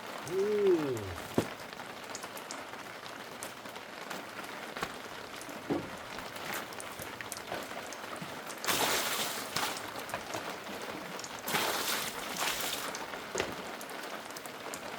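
Heavy rain falling steadily, with scattered sharp drop ticks. There are two louder rushes of rain noise about nine and twelve seconds in. Near the start comes a brief pitched sound that rises and falls, then a sharp knock.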